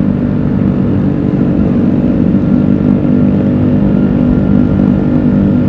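Vespa Sprint 150 scooter's single-cylinder four-stroke engine running at a steady cruise, heard from a camera mounted on the scooter, with wind rumbling on the microphone.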